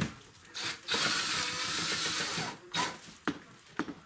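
Cordless drill running for about a second and a half, driving a screw, with a few short knocks and clicks before and after.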